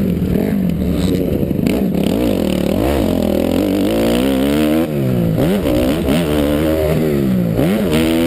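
Motocross bike engine heard onboard, revved hard over and over, its pitch climbing and dropping with each throttle opening and shift, the swoops coming faster and more regular in the second half.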